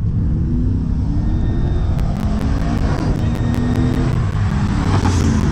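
A Chevrolet Trailblazer SS's V8 and a pickup truck racing at full throttle toward and past the listener. The engine pitch climbs and drops back with each gear change, and the sound is loudest as they pass about five seconds in.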